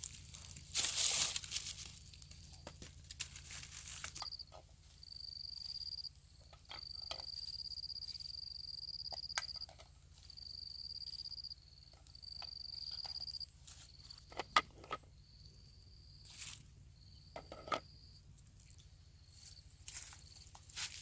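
An insect singing in a series of steady, high-pitched trills, each one to two and a half seconds long, from about four seconds in to about fourteen seconds in. Rustling and crackling handling noises are mixed in, the loudest a burst of rustling about a second in, with scattered sharp clicks later.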